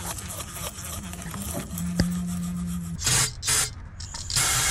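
Electric toothbrush scrubbing a throttle body coated in carburetor cleaner, its motor buzzing steadily for about a second. This is followed by hissing sprays from an aerosol can of carb cleaner: two short bursts about three seconds in and a longer one near the end.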